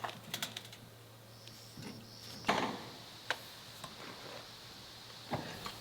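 A few light knocks and clicks over a low steady hum that stops near the end.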